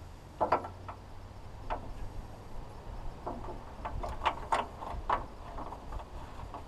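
Sharp plastic-and-metal clicks and knocks as a spill-free funnel's adapter is fitted onto the radiator filler neck. There are a few single clicks early on and a quick cluster of them about four to five seconds in.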